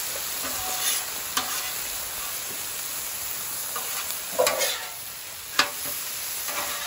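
Peas, carrots and diced onions sizzling steadily on a hot flat-top griddle, with the scrape and clack of metal spatulas on the plate as they are stirred: a few strokes about a second in, and the loudest ones past the middle.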